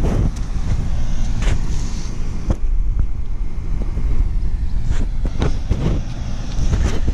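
Steady low rumble of a running vehicle, with a few short knocks.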